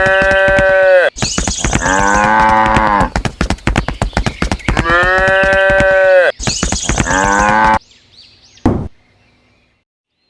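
Cattle mooing, four long calls in a repeating pair pattern over rapid clicking, stopping about eight seconds in, followed by a single sharp click.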